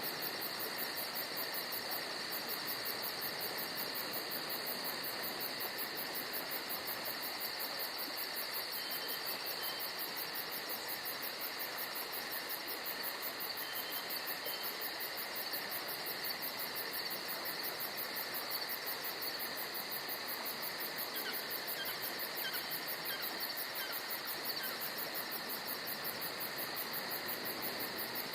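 Crickets and other insects trilling in a steady, continuous chorus, with a fast even pulse in the highest pitch. A few faint short chirps come through in the middle and later part.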